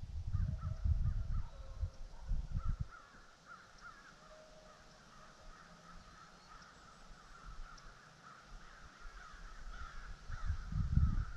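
Gusts of wind rumble on the microphone for the first few seconds and again near the end. Behind them is a faint, continuous chorus of many overlapping animal calls.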